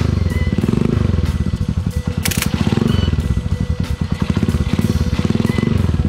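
Honda TMX single-cylinder four-stroke engine running through an aftermarket bullet-style exhaust muffler, with the throttle blipped so the revs rise and fall back about three times.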